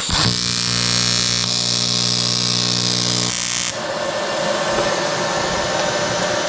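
TIG welding arc struck on an aluminium block to form a ball on the tungsten electrode: a buzzing hum over a hiss for about three seconds, from a single clean strike. The arc then cuts out and a steady hiss carries on.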